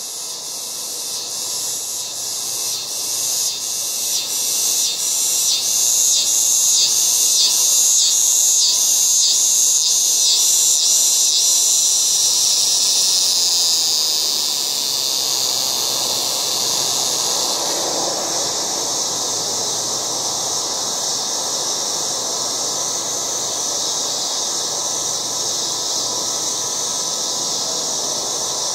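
Cicadas buzzing loudly in a high-pitched chorus. For the first dozen seconds the buzz swells and pulses about twice a second, then it settles into a steady drone.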